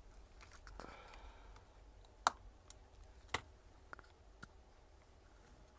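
A few small, sharp clicks: two distinct clicks about a second apart, then two fainter ticks.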